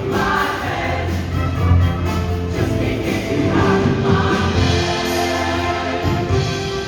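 Show choir singing in sustained harmony over instrumental accompaniment with a steady bass.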